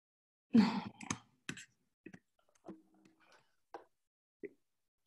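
A brief breathy mumble, then a scatter of short, sharp clicks such as a computer mouse makes, heard through a video call's audio with dead silence between them.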